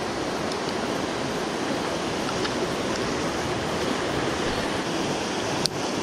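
Rushing water of a mountain stream running high after days of rain, pouring through a rocky rapid in a steady hiss. A brief click sounds near the end.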